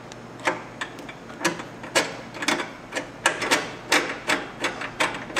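Hand ratchet clicking in repeated strokes as a T40 Torx rear fender support bolt is run in, about two strokes a second and quickening near the end.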